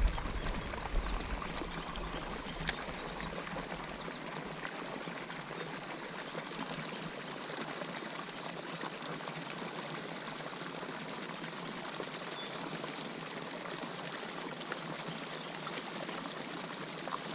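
Steady rush of water pouring into a pond where an inflow dumps in, with a couple of small clicks about one and three seconds in.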